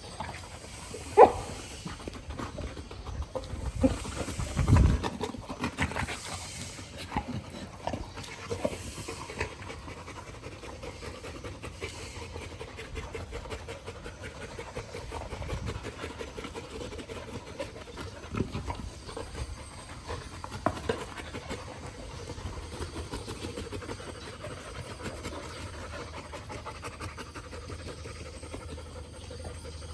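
Golden retriever panting steadily and rapidly, with a few louder knocks or bumps in the first several seconds.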